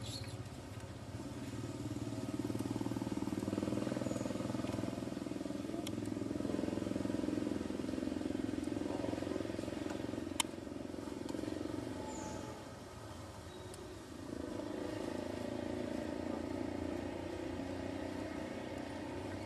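Steady engine noise that swells and fades, dipping for a moment about two-thirds of the way through, with a single sharp click about ten seconds in.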